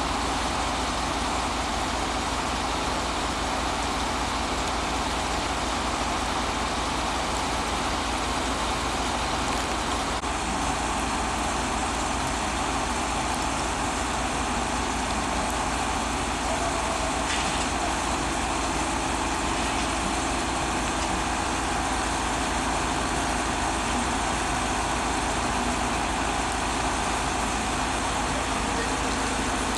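Engine of a catenary-wiring work train running steadily, a constant mechanical noise with no change in speed or load.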